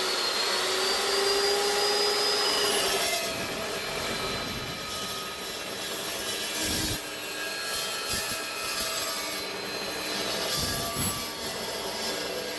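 Evolution 14-inch cold cut metal chop saw running and cutting through 3/16-inch-wall rectangular steel tubing. The motor's high whine is steady at first; about three seconds in the blade bites into the tube, the whine drops slightly under load and a rough, uneven cutting noise carries on to the end.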